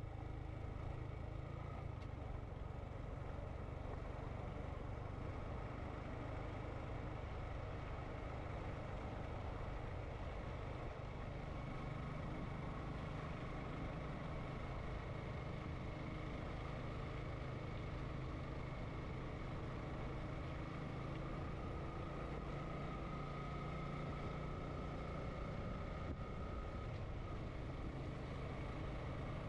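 Sport motorcycle engine running at a steady cruise, mixed with the rush of wind noise.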